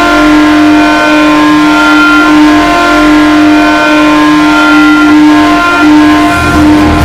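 The HC Lada Togliatti ice hockey goal horn sounding one long, steady blast at a single pitch.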